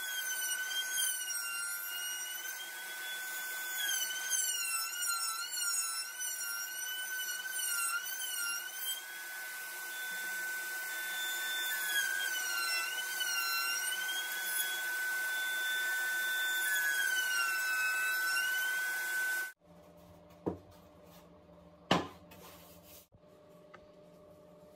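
Router table trimming the edge of an MDF speaker box, with a shop vacuum nozzle held at the bit: a steady high motor whine that wavers in pitch through the cut and cuts off abruptly about 19 seconds in. A couple of light knocks follow near the end.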